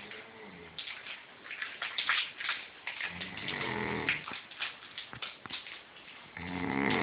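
Dog snoring in its sleep: two long rasping snores about three seconds apart, one about three seconds in and the next near the end.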